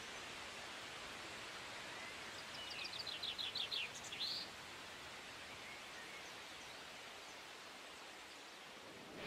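Steady outdoor ambience, an even breezy hiss, with a small bird singing a quick series of about eight short high notes midway, followed by one upward-sweeping note.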